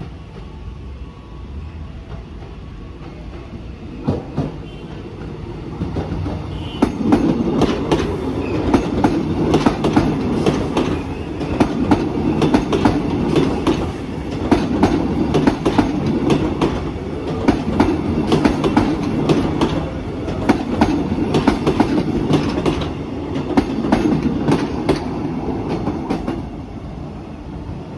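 KAI Bandara airport electric train rolling past close by, its wheels clicking and clattering over the rail joints. It grows louder over the first several seconds, comes in swells as the cars go by, and eases off near the end as the last car passes.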